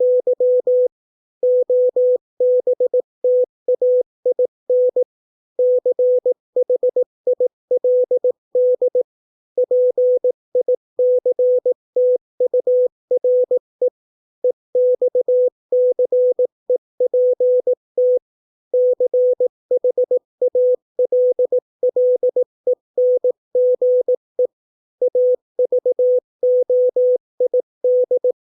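Morse code at 18 words per minute: a single steady beep keyed on and off in dots and dashes, with short pauses between words.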